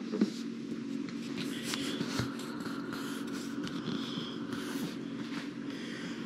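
Quiet room tone: a steady low hum, with faint scraping and rustling handling noises now and then.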